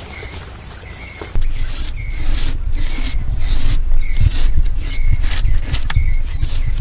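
Repeated scraping strokes, about two a second, starting suddenly about a second and a half in over a low rumble, with a short high chirp repeating about once a second.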